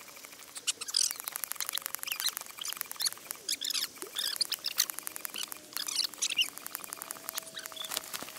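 Small birds chirping and twittering in short calls, over a fast, dense clicking.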